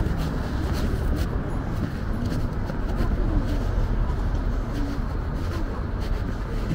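Street ambience: a steady low rumble of traffic with faint, indistinct voices.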